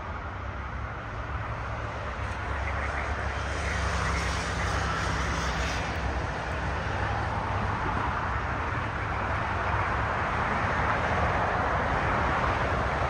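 Jet airliner engine noise across the airfield, growing louder over the first few seconds and then holding steady.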